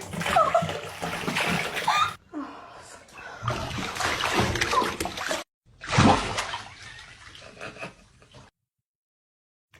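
Water splashing, with a few short pitched calls or voices over it; the sound cuts off and changes abruptly several times, then falls silent near the end.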